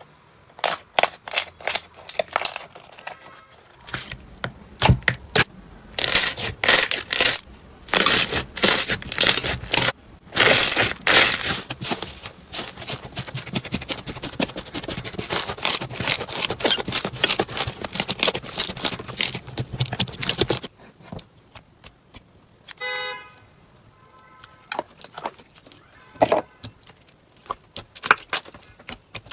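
Slime being squeezed and worked by hand, giving dense crackling and popping. About two-thirds of the way through the sound changes abruptly to quieter, sparser clicks and pops, with one brief squeak.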